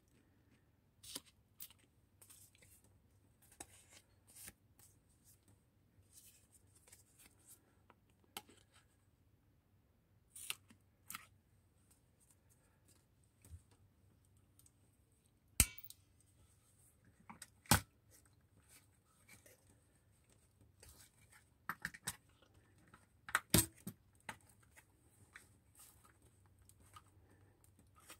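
Scattered light clicks and paper rustling from handling paper craft tags and a metal hand-held hole punch, with three sharper clicks in the second half.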